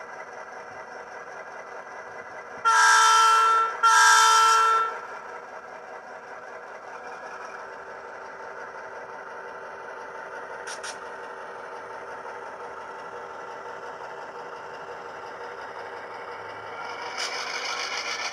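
Diesel locomotive sound played by a Tsunami Economi DCC sound decoder through the small speaker of an HO-scale class B model: a steady engine hum, two horn blasts about three seconds in, each about a second long, and the engine growing louder near the end as the model pulls away.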